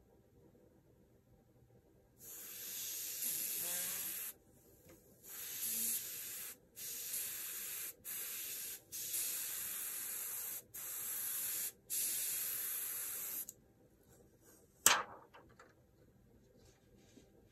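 Airbrush spraying paint in a run of short hissing bursts, about seven of them, each a second or two long, as the trigger is pressed and released. A single sharp knock follows near the end.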